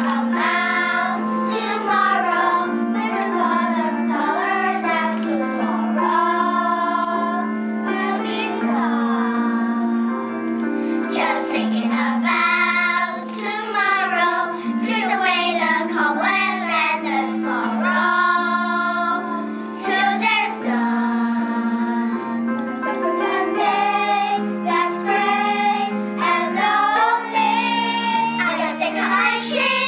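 Children singing a song together over a steady instrumental accompaniment.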